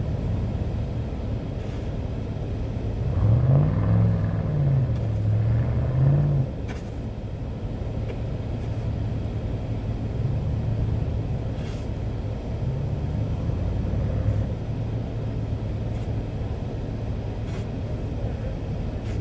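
Vehicle engine running steadily, revving up and back down about three seconds in, then rising and falling gently a few more times.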